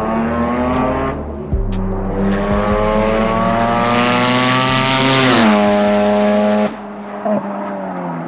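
Car engine accelerating hard, its pitch climbing steadily for several seconds, then dropping sharply about five seconds in, after which it runs on at a lower pitch.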